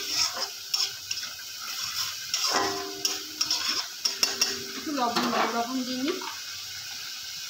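Metal spatula scraping and stirring a thick masala paste around an aluminium kadai in repeated strokes, while the paste sizzles in the oil. The masala is being fried until the oil starts to separate from it.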